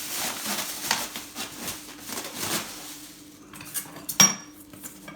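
Hard objects, crockery and metalware, knocking and clinking together as stock is rummaged through in a storage box, with one sharp, ringing clink about four seconds in.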